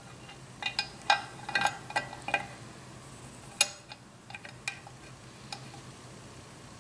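Metallic clicks and clinks of the steel reverse idler gear shaft and idler gear being worked into a Triumph Spitfire single-rail gearbox case. There is a quick run of clicks in the first couple of seconds and a single sharp one about three and a half seconds in. A few scattered taps follow and fade out.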